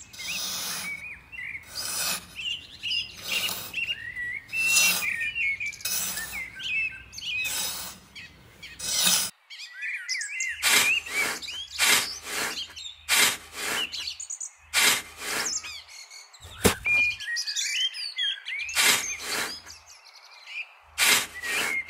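Small birds chirping throughout, over a series of short noisy strokes: evenly spaced, about one every second and a half at first, then after a brief pause a quicker, irregular run of them.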